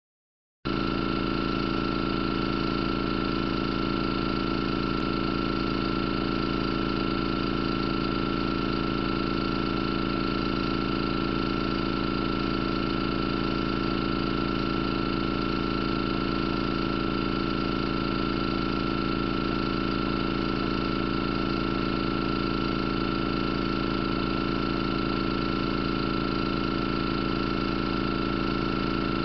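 A Märklin toy compound steam engine generating plant and the MESCO 1011 electric engine it powers at about 2 volts from a Märklin dynamo, running steadily: an even hum with a steady high whine.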